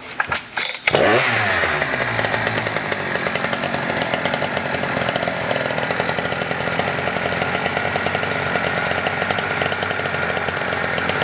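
Husqvarna 3120 XP's big two-stroke chainsaw engine being started: a few short pulls, then it catches about a second in, its revs drop back and it settles into a steady loud run.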